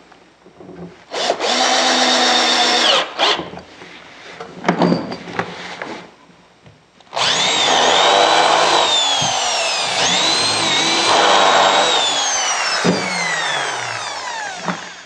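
Power drills working pine: a cordless drill-driver runs for about two seconds driving a screw into a wooden corner brace, then, after some knocks and handling, an electric drill bores into the brace for about eight seconds, its whine dipping under load and then winding down as it is released.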